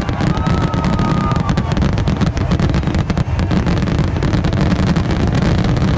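A fireworks finale: a dense, continuous crackle of many shells bursting at once over a heavy low rumble of booms.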